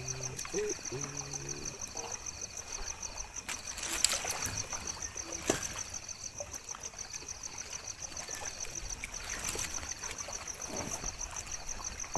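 Night lakeside ambience: insects trilling in a fast, steady pulse over a soft trickle of water, with two sharp knocks about four and five and a half seconds in.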